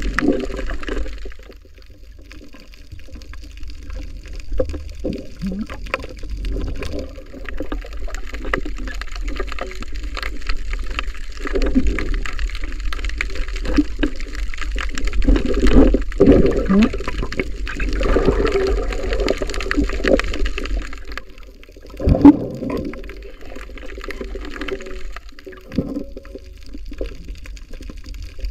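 Muffled water rushing and sloshing, heard underwater, over a steady low rumble, swelling and fading as the swimmer moves, with one sharp knock about three-quarters of the way through.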